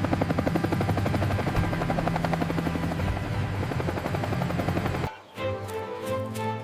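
Helicopter rotor sound effect, a fast even chopping over background music, which cuts off abruptly about five seconds in and leaves the music playing alone.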